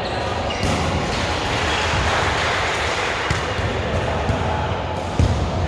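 Volleyball being struck a few times during play, with the sharpest hit near the end, over steady background noise in a gym.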